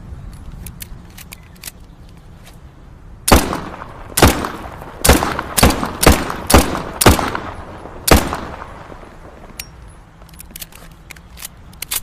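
Colt M1911 pistol fired eight times in an irregular string over about five seconds, each shot sharp with a short ringing tail, the first the loudest. Faint small clicks come before and after the shots.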